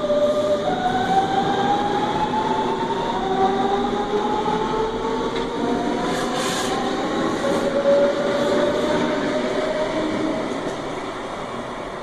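DB Class 425 electric multiple unit accelerating away, its traction converters whining in several rising tones that jump to a new pitch and climb again. The rumble of the train runs beneath, and the sound fades near the end.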